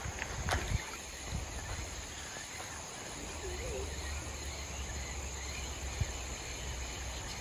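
Steady chirring of insects in the riverside vegetation, over a low, even rumble.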